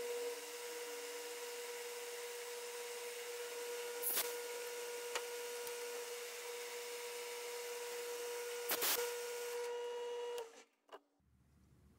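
Metal lathe running with a brass crosshead spinning in its collet while a parting tool cuts off the end slug: a steady machine hum with a held tone and a few sharp clicks, which stops abruptly about ten and a half seconds in.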